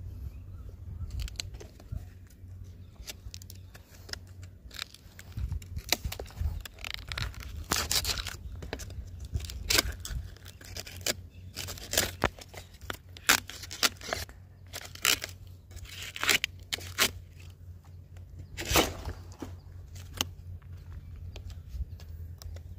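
A toddy tapper's hooked knife cutting and shaving the fibrous crown of a palmyra palm: repeated, irregular scraping and tearing strokes.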